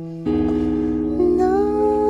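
Squier Bullet Telecaster electric guitar: a chord strummed about a quarter second in and left ringing. From about a second in, a high voice hums along, sliding up to a held note.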